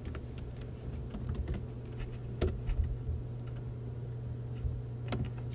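Laptop keyboard keys clicking at an uneven pace, a few sharper clicks standing out, over a steady low hum of room or projector noise.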